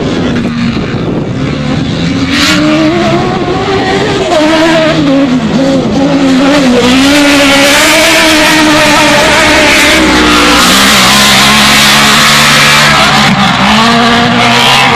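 Several autocross race cars racing, their engines revving hard with pitches rising and falling through gear changes. The sound grows louder about four seconds in and stays loud.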